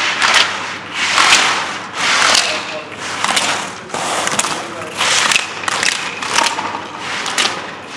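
Slalom skis carving through the turns on snow: a scraping hiss that swells and fades about once a second with each turn, with sharp slaps from the gate poles as the skier clears them.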